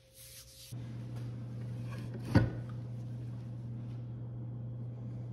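Steady low hum of workshop room tone, starting under a second in, with a sharp knock about two and a half seconds in and a lighter knock near the end.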